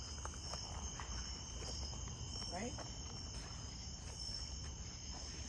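Night insects, crickets and the like, keeping up a steady high-pitched chorus, with a few faint clicks beneath it.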